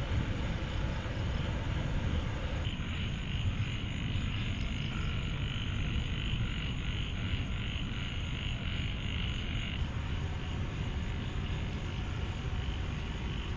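A steady chorus of frogs croaking, heard over a low background rumble.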